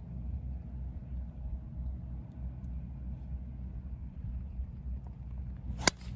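Low, steady rumble of wind on the microphone, then a single sharp crack near the end as a golf club strikes the ball on a tee shot.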